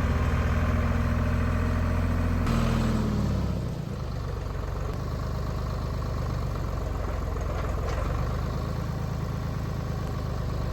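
Portable sawmill's engine running steadily; about three to four seconds in its pitch and level drop, and it settles into a steady lower-speed run.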